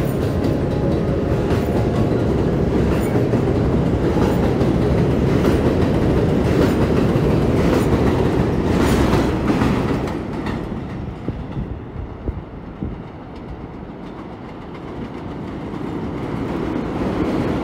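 Subway train running on the rails: a loud, dense rumble with repeated clacks of the wheels over the track. It eases off about ten seconds in, then builds again near the end.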